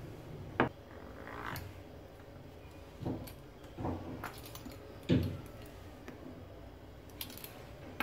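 Kitchen tools being handled on a countertop while dough is rolled out and trimmed: about four dull knocks and taps, the loudest about five seconds in.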